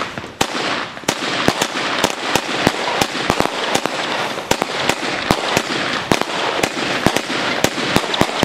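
16-shot consumer firework cake from the Vulcan Bad Boys assortment firing: a rapid, uneven string of sharp shots and bangs, two to four a second, over a continuous crackling hiss from the bursting stars.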